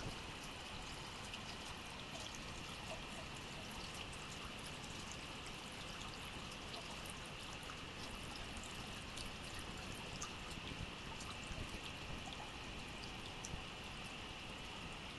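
Water from a faucet running in a thin, steady stream, with faint scattered clicks over it.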